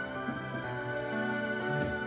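Slow, sad background music with long held notes.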